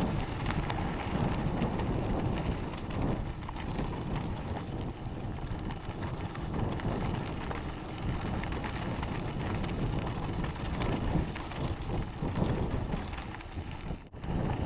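Wind buffeting the microphone over the rumble of a mountain bike's tyres on a dirt trail, with scattered clicks and rattles from the bike over the bumps. The sound drops out briefly near the end.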